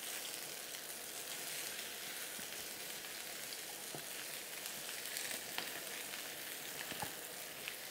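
Meatballs frying in olive oil in a skillet: a steady sizzle, with a few faint ticks.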